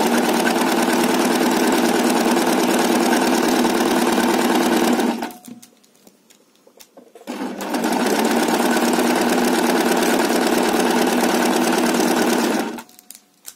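Electric sewing machine running at speed with a side-cutter overlock foot, zigzag-stitching and trimming the fabric edge. It runs for about five seconds, stops for about two, then runs again for about five seconds before stopping near the end.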